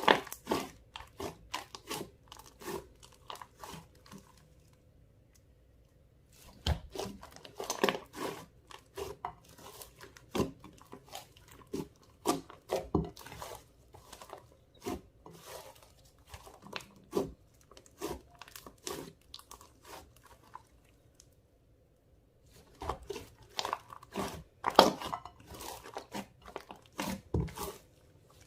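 Clear slime mixed with makeup and glitter being squished and stretched by hand, giving runs of sticky clicks and small pops. It goes quiet twice, a few seconds in and again about two-thirds of the way through.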